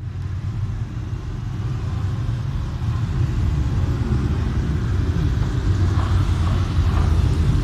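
A group of motorcycles approaching along the street, their engines a low, steady rumble that grows louder as they come closer, with the engine note shifting slightly in pitch about halfway through.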